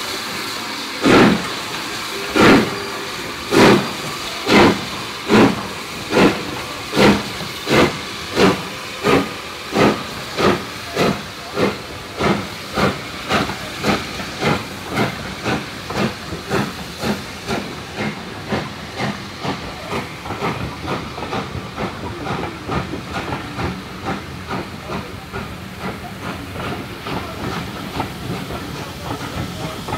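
Steam locomotive pulling away: loud exhaust beats from the chimney, at first a little over a second apart, quickening steadily and growing fainter as the train gathers speed, with steam hissing between the beats.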